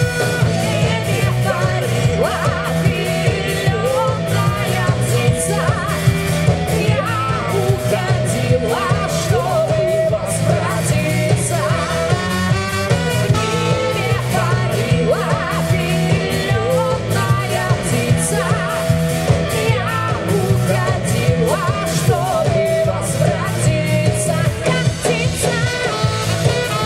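Live cover band playing a pop song, with a steady drum beat, bass and a melodic line that PANN takes for singing.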